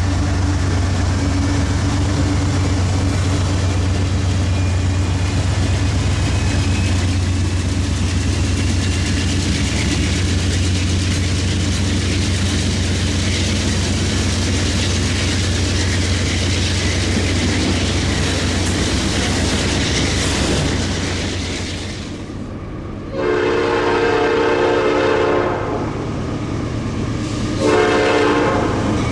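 Freight train rolling past a grade crossing, a steady rumble of wheels on rail. About 22 seconds in, the rumble gives way to long diesel locomotive horn blasts, two of them, as a train approaches the next crossing.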